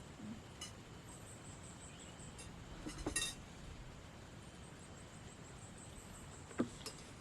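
Light clinks of a spoon and fork against a plate during a meal: a short cluster about three seconds in and one sharp clink near the end.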